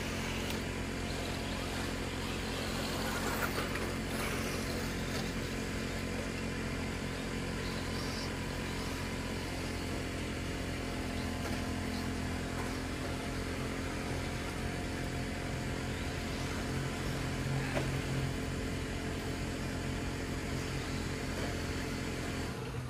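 A steady low mechanical hum that holds one pitch throughout, over outdoor background noise. It drops off slightly at the very end.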